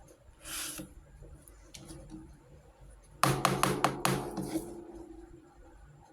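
Miniature toy kitchen pieces being handled: a brief rustle, then a quick run of clicks and clinks about three seconds in that ring briefly and fade.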